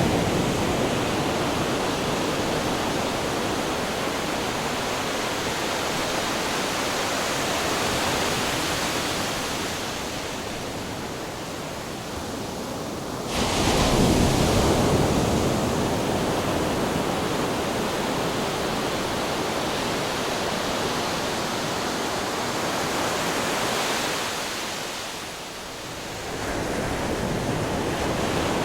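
Ocean waves crashing on rocks: a constant rush of surf, with one wave breaking suddenly and loudly about halfway through. Near the end the surf dips into a short lull, then builds again.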